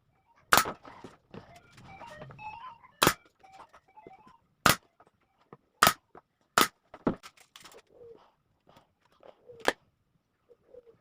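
A run of sharp knocks, about six loud ones spaced irregularly a second or more apart with lighter clicks between, from work on a plywood box. Pigeons coo faintly near the end.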